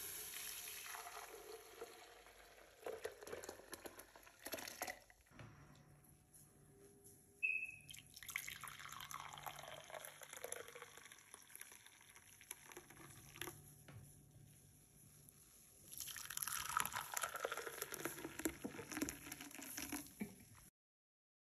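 Hot milk poured in three long pours, first into a plastic jug and then into ceramic mugs. There is a short high ping about seven and a half seconds in.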